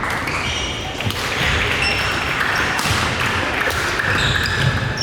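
Players' shoes squeaking and thudding on an indoor court floor during a singles match, with scattered sharp knocks and background voices echoing in a large hall.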